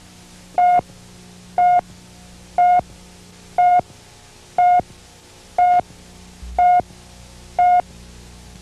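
Countdown leader beeps: eight short beeps of one steady mid-pitched tone, one a second, over a steady low hum and hiss.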